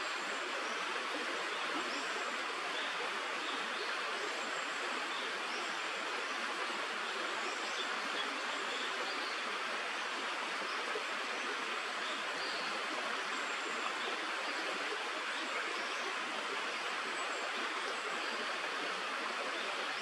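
Steady rushing of flowing stream water, an even hiss with no breaks, with faint high chirps scattered over it.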